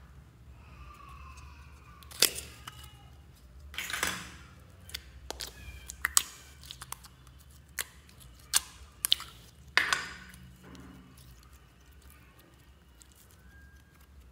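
Soft slime being pressed and pulled out of a small plastic container by fingers, giving a handful of sharp sticky pops and clicks, most of them in the first two-thirds, then quieter handling.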